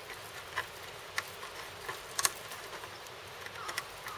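A cat's claws scratching on a weathered wooden rail as it sharpens them: a few separate short, sharp scrapes over a faint steady hiss.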